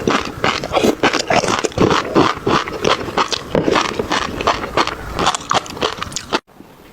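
Close-miked eating noises: rapid wet chewing, lip-smacking and slurping. They stop abruptly near the end.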